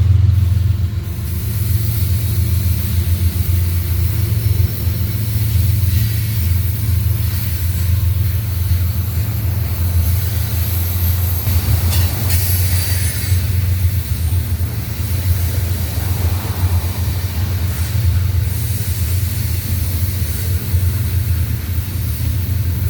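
Train rolling past, a steady low rumble of railcars on the rails, with faint high wheel squeals about halfway through.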